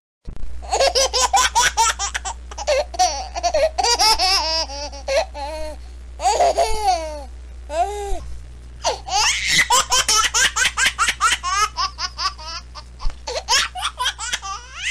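A baby laughing over and over in quick, high-pitched bursts of giggles, played as a phone ringtone over a low steady hum.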